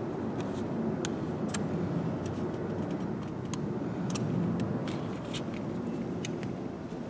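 Scattered small, sharp clicks and cracks of a car's plastic card-key shell being pried open along its glued seam, over a steady low background rumble.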